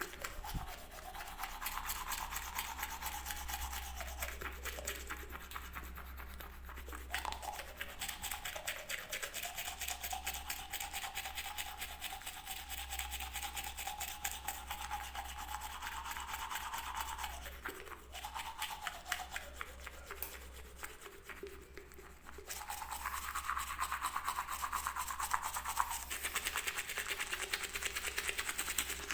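Teeth being brushed with a toothbrush: a fast, continuous scrubbing that eases off about three-quarters of the way through, then comes back louder.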